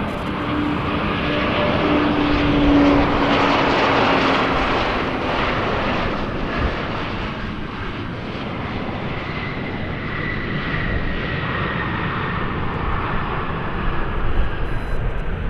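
Embraer E190 jet airliner arriving to land, its two CF34 turbofan engines running loud. The engine noise is loudest about three seconds in, then eases, and a high whine slowly falls in pitch over the second half.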